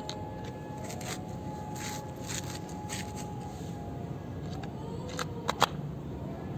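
Plastic clicks and light rattles as a toy car's plastic wheel and chassis are handled. About five seconds in come a few sharp, louder clicks as the wheel is pushed onto its metal axle. A steady low background noise runs underneath.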